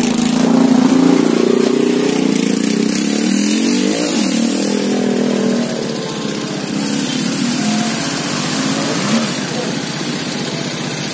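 A motorcycle engine running close by, revving so that its pitch rises and falls about four seconds in, then running a little quieter.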